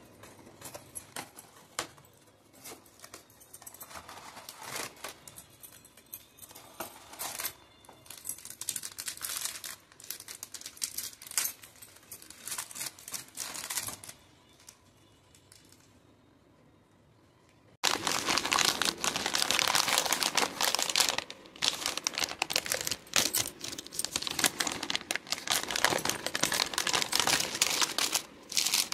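Cardboard biscuit box and its foil inner packet handled and torn open, in short crinkling, tearing strokes. After a short pause about halfway through, a louder, denser crinkling of plastic chocolate-bar wrappers as a bag of wrapped bars is tipped out and the bars are handled.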